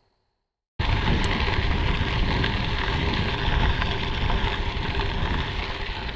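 Wind buffeting the microphone while cycling, with bicycle tyres rolling over gravel, cutting in suddenly about a second in.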